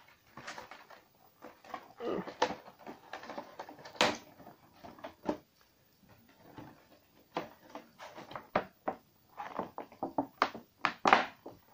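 Cardboard and plastic packaging of a Pokémon card collection box being worked open by hand: irregular clicks, taps and scrapes as a tightly jammed card is prised out of its insert.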